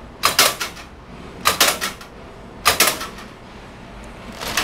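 Metal shelves of a Laurel 899-MAX drop-shelf vending machine dropping, four short clattering knocks about a second apart as packaged products fall into the delivery bin below.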